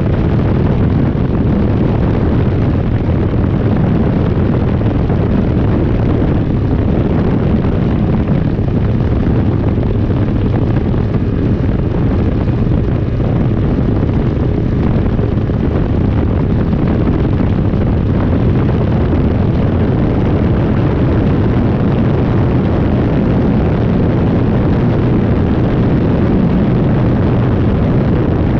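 Rotax 503 two-cylinder two-stroke engine and propeller of a Phantom X1-E ultralight running loud and steady without a break.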